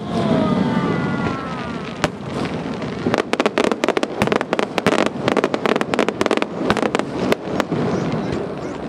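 Fireworks going off: booming bursts, then a dense run of rapid sharp cracks from about three seconds in until around seven and a half seconds.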